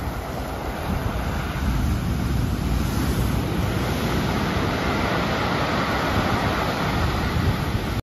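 Ocean surf breaking against rocks and washing up over a pebble beach: a continuous rush of foaming water that swells about two seconds in and stays up.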